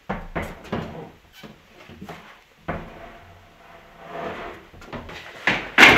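Footsteps and light knocks of someone moving through a wooden doorway, then a sudden creak-like sound that holds one steady tone for about a second and a half, and a sharp, loud sound just before the end.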